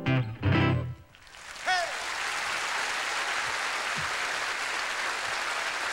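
Gibson nylon-string cutaway guitar playing the last fingerpicked notes of a tune, ending about a second in. Then an audience applauds and cheers steadily, with one short falling cheer shortly after the applause starts.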